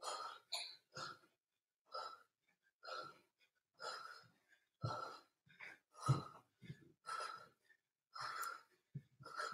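A man breathing hard in short, sharp exhalations, roughly one a second, from the effort of throwing fast punches.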